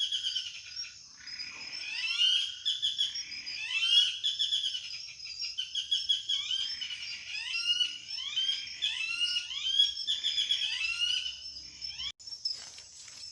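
A dense chorus of wild animal calls, many short rising and falling chirps overlapping one another, over a steady high insect drone. The chorus breaks off suddenly near the end.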